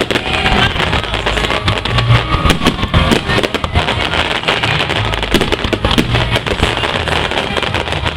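Fireworks going off in rapid succession: dense crackling and sharp bangs, with low booms underneath.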